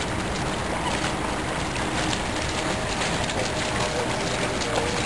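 Steady wind noise on the microphone over water splashing as a Norfolk terrier wades through a shallow river.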